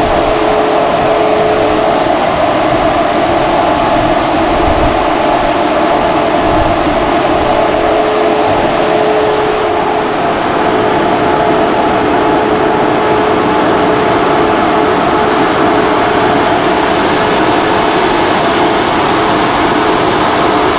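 SPAL electric radiator fans running at a steady speed: an even, loud whoosh of air with a steady hum through it.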